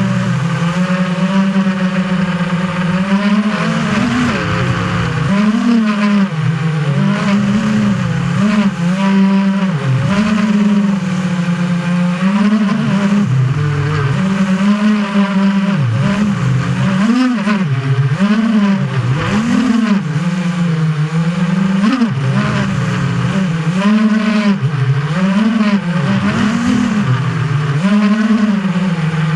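FPV quadcopter's brushless motors and propellers whining as heard from the onboard camera, the pitch swinging up and down every second or two as the throttle is worked.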